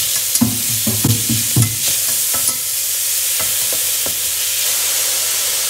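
Chopped onions and garlic sizzling steadily as they sweat in a pot, with a utensil knocking and scraping against the pot several times in the first two seconds and a few more times later as they are stirred.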